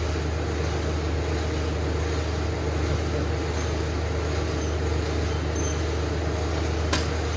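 Steady low mechanical hum of shop equipment left running, with a single sharp click about seven seconds in.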